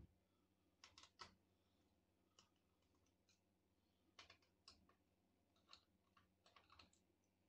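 Faint scattered clicks and light taps from a laptop's plastic case parts and small tools being handled during disassembly. The clicks come in small clusters, about a second in, around four to five seconds, and again near the end.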